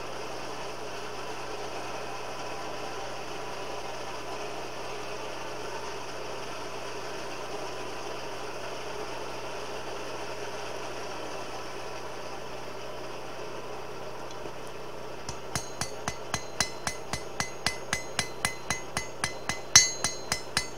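A forge blower runs steadily. About 15 seconds in, hand-hammer blows ring out on the anvil, roughly three a second, with one louder blow near the end: the first heat, forging the end of a hot coil-spring steel bar to a 45-degree angle.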